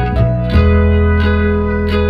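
Background instrumental music: plucked notes over a steady low bass.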